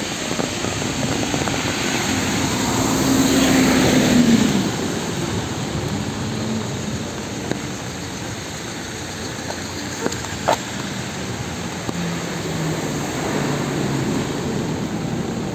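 Traffic on a wet city street: a vehicle passes about three to four seconds in, its pitch falling as it goes by, over a steady hiss. A single sharp click about ten seconds in.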